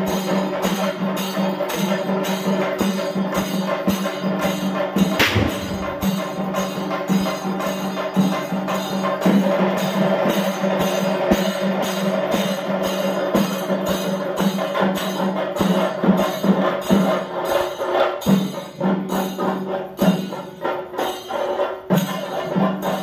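Temple festival percussion music: drums and cymbals beating a fast, even rhythm over a sustained drone. One sharp, loud crack comes about five seconds in.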